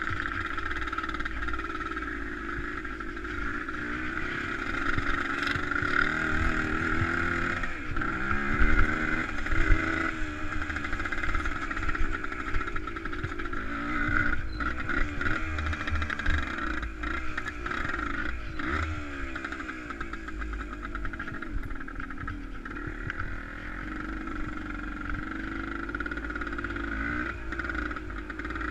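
A vehicle engine running, its pitch rising and falling repeatedly as the throttle opens and closes, over a steady noise.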